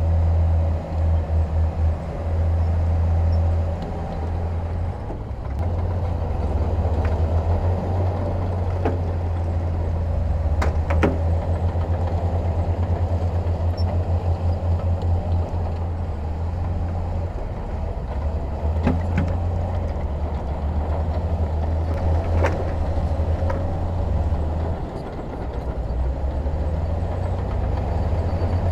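Heavy diesel construction machinery running with a steady, throbbing low rumble, with a few short knocks.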